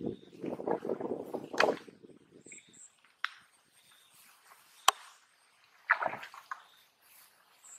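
Footsteps swishing through tall grass, then two sharp clicks and a splashing step into shallow muddy water about six seconds in.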